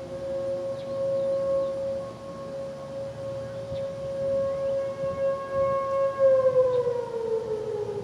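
Federal Signal Thunderbolt outdoor warning siren sounding a steady tone. About six seconds in it begins to wind down, its pitch falling as the rotor slows.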